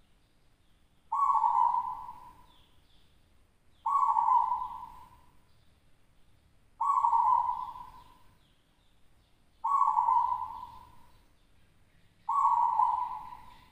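Local perkutut (zebra dove) cooing in its cage: five coos in a row, one about every three seconds, each starting suddenly and fading away over about a second.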